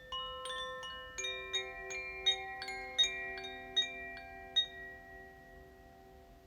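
Koshi chimes of the water and earth elements (Aqua and Terra) ringing as they are swayed, the clapper striking the tuned rods again and again. Many clear, overlapping bell-like tones build up during the first four or five seconds, with a few louder strikes, then ring on and slowly fade.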